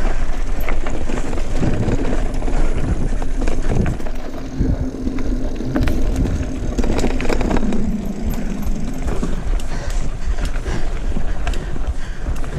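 Mountain bike being ridden on a dirt trail: steady tyre and drivetrain noise with scattered clicks and rattles, and a faint steady hum for several seconds in the middle.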